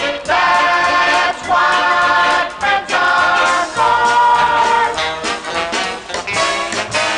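Group of voices singing in close harmony, holding long chords one after another with short breaks between them, played from a 1960s children's record.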